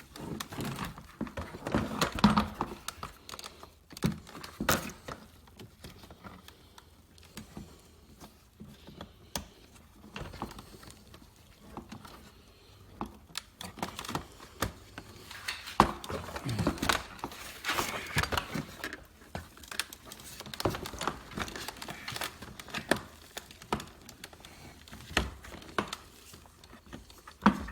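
Hard plastic door-trim and window-switch parts being handled and worked at, with scattered clicks, knocks and rustling.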